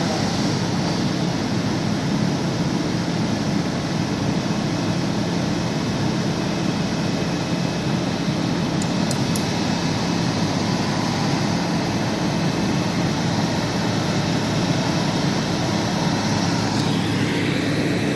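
Bulldozer diesel engine running steadily at a constant, loud level.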